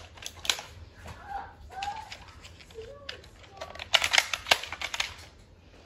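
Toy foam-dart blasters being fired and handled: a scatter of sharp plastic clicks and knocks, with a quick burst of them about four seconds in. A few short high vocal squeaks come in between.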